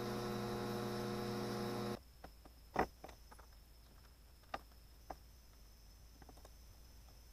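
Stick-welding arc buzzing steadily, cut off abruptly about two seconds in. Then a few light clicks and taps of small metal parts being handled, the loudest a little under a second after the buzz stops.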